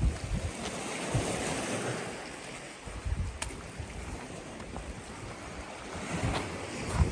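Small sea waves washing in at the shore, swelling about a second in and then easing, with gusts of wind buffeting the microphone.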